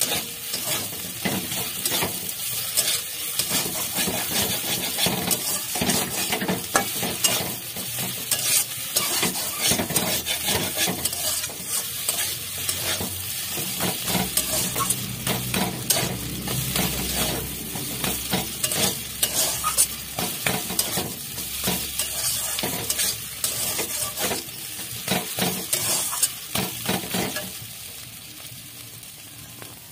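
Cauliflower paratha filling being stir-fried in a pan: a spatula scrapes and knocks against the pan in quick, uneven strokes over a steady sizzle. The stirring stops about two seconds before the end, leaving a quieter sizzle.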